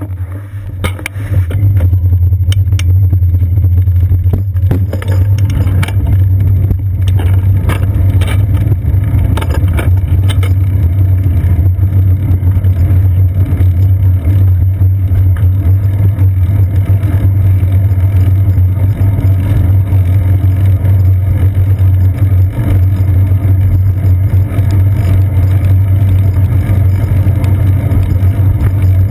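Loud, steady low rumble of a bicycle being ridden over wet pavement, picked up by a GoPro Hero 2 camera mounted on the bike's seat post. Scattered clicks and knocks in the first several seconds, as the ride gets going.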